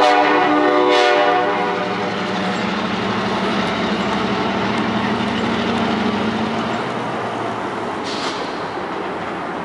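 Horn blast from trailing MP15AC locomotive 157, sounding right at the start and fading out within about two seconds. It is followed by the steady running of the locomotive's Roots-blown EMD diesel and rail noise as the train pulls away.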